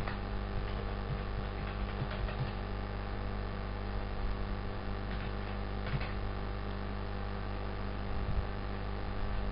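Steady electrical mains hum, a low buzz with its overtones, with a few faint clicks.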